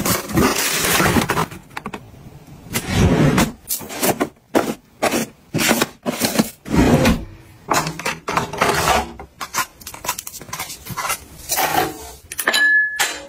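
Hands unpacking and putting away boxed beauty products: a run of separate rustles, scrapes and knocks of plastic air-column packaging, cardboard and product boxes, with short pauses between them. A short metallic ring sounds near the end, around a stainless steel canister.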